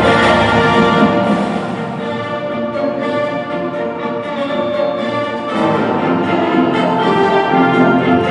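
An instrumental ensemble with brass playing sustained chords. The music eases off briefly, then swells louder again about five and a half seconds in.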